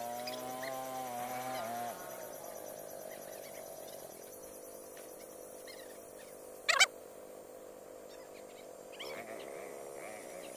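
Motor scooter engines running on a forest trail: the nearer one cuts off about two seconds in, and a fainter engine keeps idling. A single brief, loud chirp cuts through about two-thirds of the way in.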